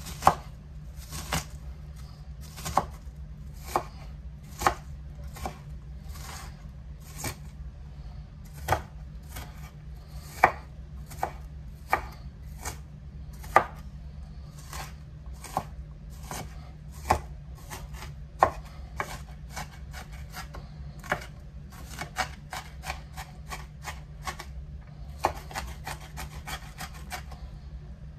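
A chef's knife chopping an onion on a wooden cutting board: sharp knocks of the blade on the board, about one a second at first, speeding up into quick runs of several chops a second near the end.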